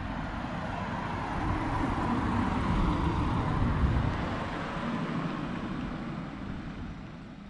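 An Audi hatchback drives past on the street, its tyre and engine noise swelling to a peak about halfway through and then fading away as it goes by.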